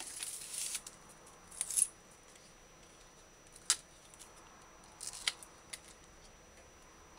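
Kitchen knife cutting through scallion stalks and leaves held in the hand, with the dying outer leaves rustling as they are stripped off: a few short, crisp snips spread out, the sharpest a little past the middle.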